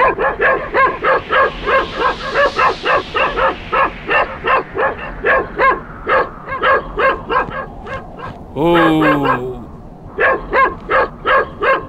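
Cartoon sled dogs yapping in quick succession, about three short high yaps a second. Near nine seconds in, one lower call slides down in pitch, and then the yapping picks up again.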